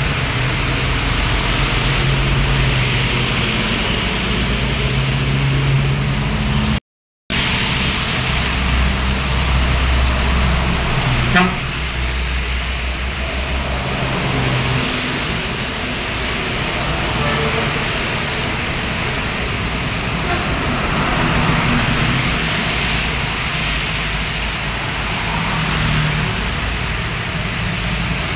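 Street traffic going by on a wet road: diesel trucks and motorcycles passing with engine hum and tyre hiss on the wet asphalt. The sound cuts out briefly about seven seconds in, and a short sharp sound stands out about eleven seconds in.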